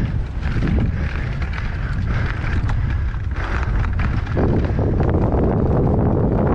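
Enduro mountain bike running fast down a dirt trail, with heavy wind rush on a helmet-mounted camera, tyre noise and quick rattles and knocks from the bike over the bumps. The rush grows louder about four seconds in.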